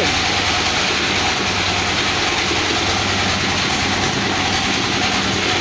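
Generator engine running steadily, a constant hum with no change in speed.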